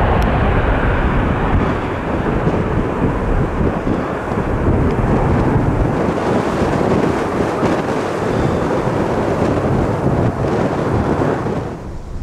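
Airbus A330-300 airliner's jet engines at take-off power, a loud continuous rumble that drops away abruptly near the end.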